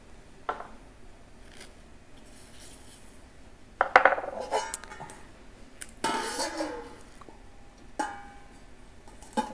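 Stainless steel cookware clinking and clattering in several separate knocks, the loudest about four seconds in. Near the end a stainless lid is set down on a stainless pot with a short metallic ring.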